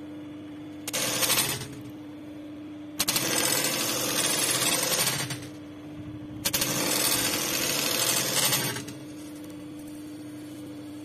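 Juki industrial buttonhole sewing machine stitching buttonholes in fast, rapid-fire runs: a short burst about a second in, then two runs of about two and a half seconds each, starting about three and six and a half seconds in. A steady hum carries on between the runs.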